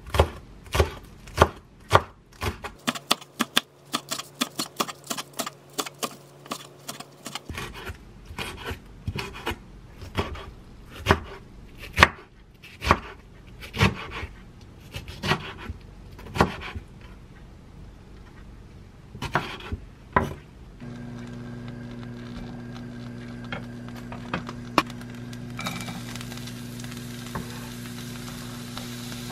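Chef's knife chopping green onions and then washed aged kimchi on a wooden cutting board, one sharp chop after another. About twenty seconds in the chopping stops and a steady hum begins. Near the end a faint sizzle starts as minced garlic and green onions hit hot olive oil in a frying pan.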